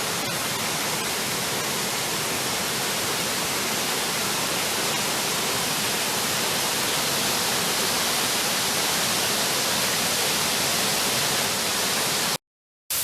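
Steady rush of a creek's waterfall running high, even and unbroken, cutting out for a moment near the end.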